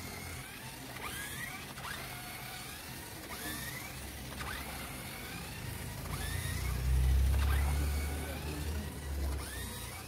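Small DC toy-car motor of a homemade remote-control monster truck whining as it spins up again and again, each time rising in pitch and levelling off, about once a second. A low rumble swells over the last few seconds.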